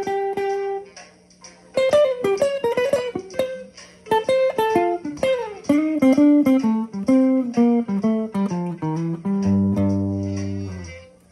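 Electric guitar playing a melody of quick picked single notes with slides. It ends on a held chord that stops abruptly just before the end.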